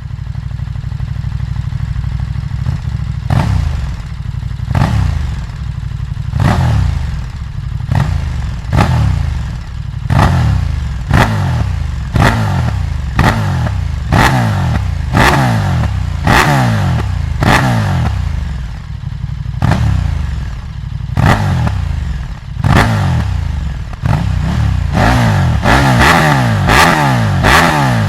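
KTM 1290 Super Duke R's V-twin through a SpeedPro Cobra SPX slip-on exhaust, idling for a few seconds and then being revved in repeated sharp throttle blips, each dropping quickly back toward idle. The blips come closer together near the end.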